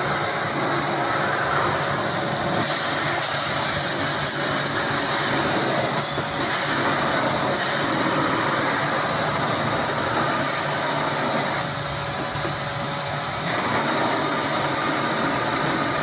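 Pressure washer spraying water in a steady hissing jet, with a low motor hum underneath; the hiss shifts in strength a few times.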